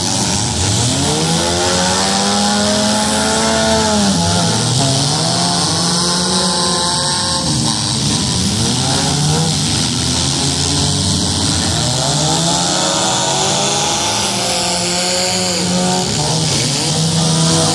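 Several demolition derby cars' engines revving hard, their pitch rising and falling over and over as the cars accelerate, brake and reverse, with more engines running underneath.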